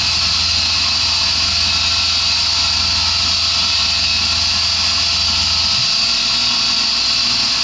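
CNC milling machine cutting aluminium with a 10 mm three-flute end mill at 4000 rpm under a mist coolant spray: a steady high hiss over the machining noise, with a low hum that drops away about six seconds in.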